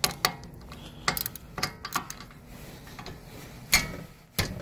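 Hand tools on a rear hub bolt: a handful of irregular, sharp metallic clicks and knocks, the loudest near the end, as a wrench works at one of the 17 mm bolts holding the rear hub assembly.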